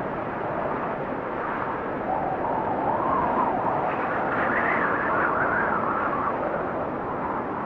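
Steady rushing wind, with a faint wavering howl that climbs and falls away through the middle.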